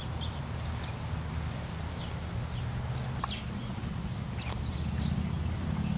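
Outdoor pasture ambience: scattered short bird chirps over a steady low rumble, with a couple of sharp clicks about midway.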